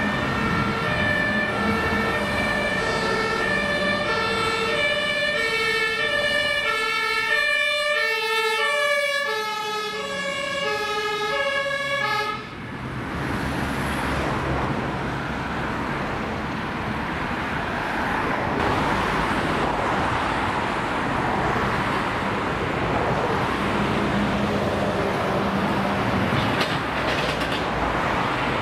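Two-tone German fire engine sirens (Martinshorn) from two fire engines sounding together, their alternating high-low notes overlapping out of step. They cut off suddenly about twelve seconds in. After that the engines of the passing convoy and the road traffic run on.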